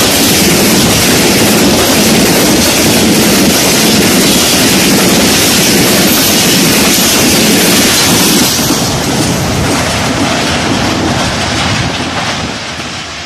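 Passenger coaches of an express train passing at speed close by: a loud rush of wheel and rail noise with the clickety-clack of wheels over rail joints. The noise eases a little after about eight seconds and fades near the end as the train draws away.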